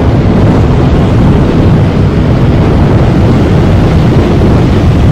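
Douglas DC-3's twin radial piston engines as a loud, steady low rumble while the airliner flies away after passing overhead.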